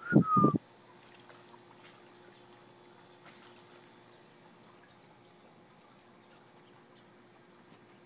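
A short, loud call from a person's voice at the very start, then faint splashing and pattering of a puppy's paws through shallow puddles on a mesh pool cover, over a faint steady hum.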